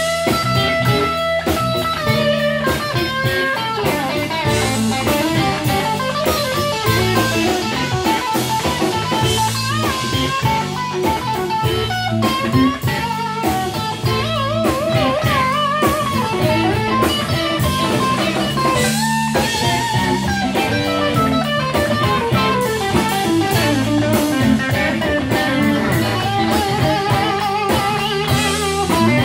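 Live electric blues: two electric guitars playing over drums, with a lead guitar line of held, bent notes with wide vibrato. Instrumental, with no singing.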